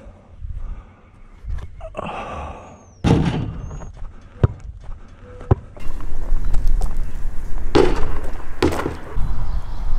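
A basketball thudding and knocking as it is shot at a hoop and bounces, with a few sharp knocks spaced about a second apart and heavier thuds near the end.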